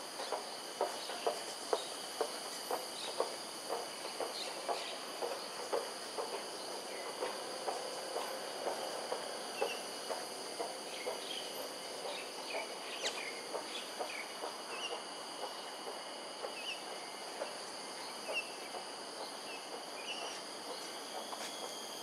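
Insects shrilling steadily in several high tones. Over them comes a run of short low pulses, about two a second, that fade out about halfway through, and later a few faint high chirps.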